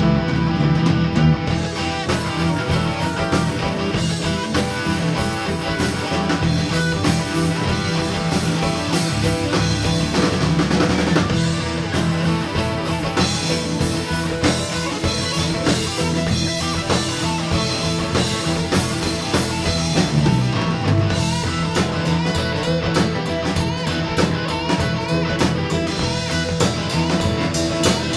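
Live rock band playing an instrumental passage: electric guitar over bass, keyboards and a drum kit.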